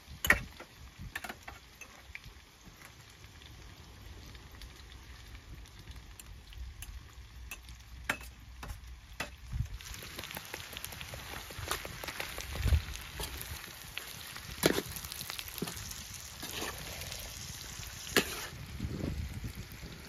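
Chicken pieces frying and sizzling in a large metal pan over a fire, with a metal spoon scraping and clicking against the pan as they are stirred. The sizzling grows louder about halfway through.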